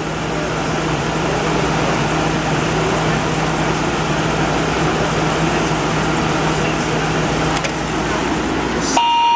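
Window air conditioner running with its compressor on and the fan on high: a steady rush of air over a low, even hum. The compressor runs continuously and never cycles off. A short, steady high beep sounds near the end.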